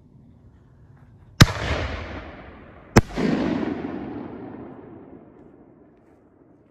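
Consumer HD canister firework shell fired from a fiberglass mortar tube: a sharp launch bang, then about a second and a half later the louder burst of the shell, each followed by a long rolling echo that fades away.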